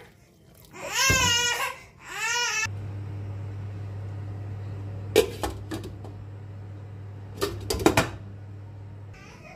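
A baby crying in two short bursts, then a steady low hum with a few sharp metal clinks, the loudest as a glass lid is set on the cooking pot near the end.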